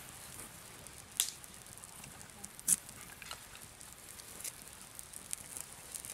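Small campfire of thin sticks and damp tinder crackling quietly, with scattered sharp pops, the loudest about a second in and just before three seconds in. The heavy smoke shows moisture still in the wood.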